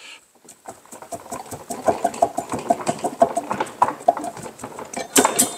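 Crankshaft of an S44 engine being worked loose and lifted out of its block: a quick, uneven run of light metallic clinks and knocks, some ringing briefly.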